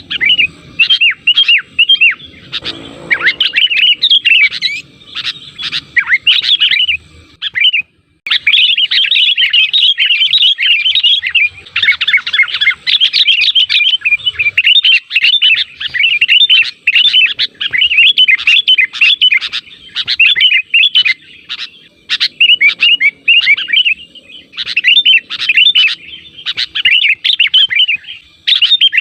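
Sooty-headed bulbul (kutilang) lure recording: rapid, busy chattering of quick rising and falling chirps, with a short break about eight seconds in.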